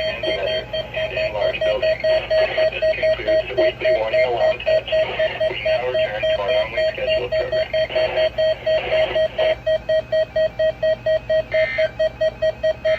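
Electronic alarm beeping rapidly at one steady pitch, about four beeps a second, with a rougher background noise under it that drops away about nine seconds in.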